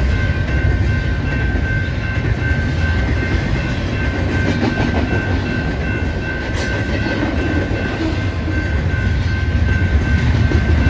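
Double-stack container freight train rolling past: a steady, loud rumble of steel wheels on rail, with a faint steady high ringing tone over it.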